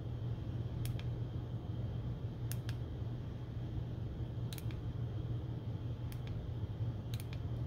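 Small push buttons on a Pinecil soldering iron clicking as they are pressed to step through its menus: about seven sharp clicks spaced out, two of them in quick pairs. A steady low hum runs underneath.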